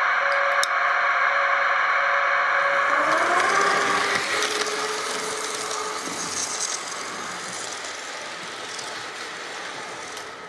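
Model DB class 420 S-Bahn train running on its track: the electric motor whines over the rattle of the wheels, with the whine rising in pitch about three seconds in. The sound fades steadily as the train runs away.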